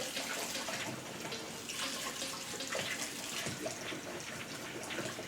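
Kitchen faucet running into a sink, water splashing steadily.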